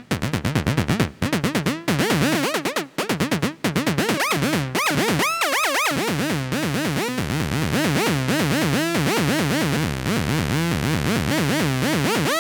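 Early-1990s Rotterdam hardcore electronic music: a rapid, stuttering synthesizer riff whose notes swoop up and down in pitch. There are a few brief gaps in the first four seconds, then it runs on steadily.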